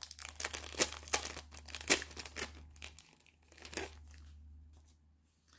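Clear plastic packaging crinkling and crackling as it is handled, for about four seconds, then it stops.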